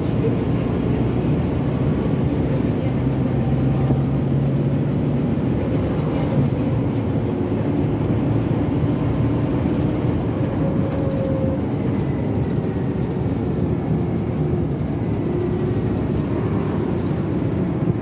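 Volvo B9TL double-decker bus under way, heard from inside: its six-cylinder diesel runs steadily under road and body noise, with the slightly annoying hoover sound this bus has picked up.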